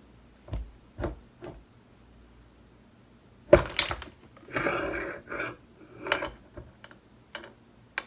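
A one-ton arbor press pushes the stock trunnion out of a GM LS rocker arm through a socket. A few light metal clicks come first, then a sharp crack about three and a half seconds in as the trunnion breaks loose, followed by a clatter of small loose metal parts, the trunnion and its bearings, and a few more clinks.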